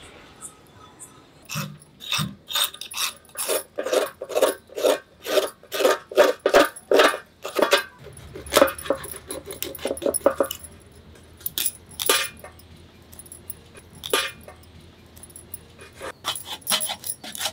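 Dried fish being scraped and cut against an upright curved floor blade (aruvamanai): a quick run of rasping strokes, about three a second, turning to slower, scattered strokes about two-thirds of the way through.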